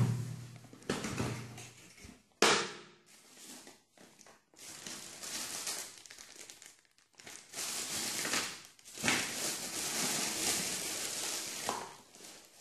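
Unboxing a cardboard shoebox: a sharp knock as the lid comes off, another about two and a half seconds in, then long stretches of tissue paper and plastic wrapping crinkling and rustling as the packing is pulled aside.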